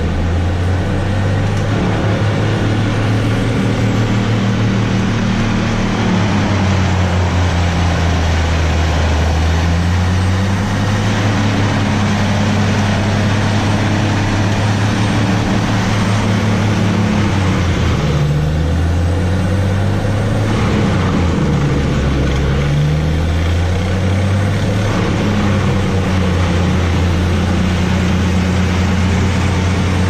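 Bandit wood chipper's engine running under load as a grapple loader feeds brush into it, over a constant noise of chipping. The engine note wavers and dips twice about two-thirds of the way through as the load comes on, then recovers.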